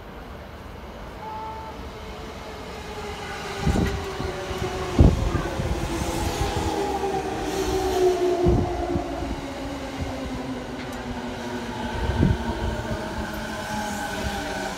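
Electric commuter train of the JR Musashino Line pulling in and slowing past the camera: a whine that falls slowly in pitch as it brakes, growing louder as the cars arrive, with four heavy thumps of wheels over rail joints.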